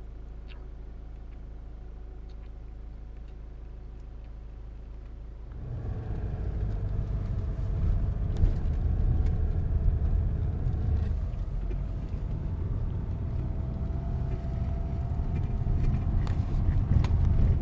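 Car heard from inside the cabin: a quiet, steady low hum at first, then from about six seconds in the louder engine and tyre rumble of the car driving along a road, swelling a little near the end.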